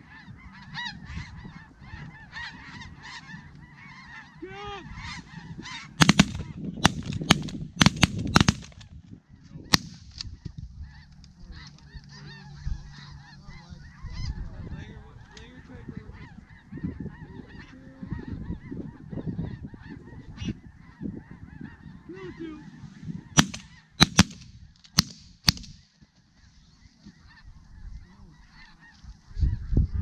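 Snow geese calling, a dense, continuous chorus of high honks. Two volleys of shotgun blasts cut through it: about six shots in quick succession about a fifth of the way in, and another four or five shots about four-fifths of the way through.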